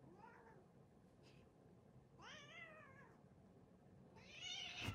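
Calico cat meowing faintly three times: a short call at the start, a rising-and-falling meow about two seconds in, and a louder, wavering one near the end.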